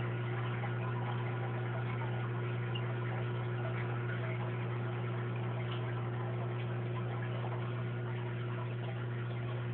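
Steady electric hum of an aquarium pump with a strong low drone and a constant fizzy hiss over it, unchanging throughout.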